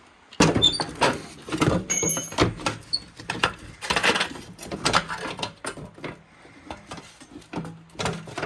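Irregular knocks, clanks and rattles of parts and hand tools being handled during disassembly of the engine bay, with a brief squeak about two seconds in.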